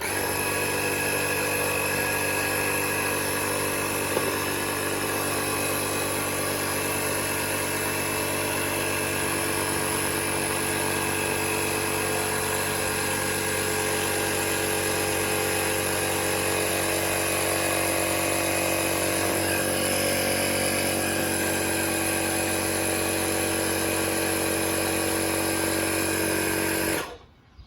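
Kensun portable electric air compressor running steadily as it inflates a flat bicycle tyre, an even motor-and-pump drone that starts abruptly and is switched off about a second before the end.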